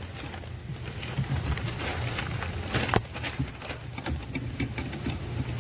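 Scattered light clicks and knocks of plastic trim clips and parts being worked loose under a car's dashboard, the sharpest about three seconds in, over a steady low hum.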